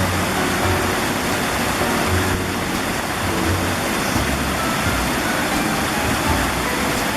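Steady rushing of a waterfall, with soft music underneath.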